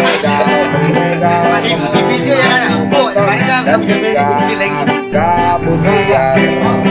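Instrumental background music led by plucked strings, with a melody line above them.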